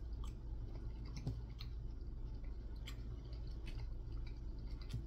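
A person chewing soft food close to the microphone, with a few scattered short clicks of a metal fork on a plate, over a low steady hum.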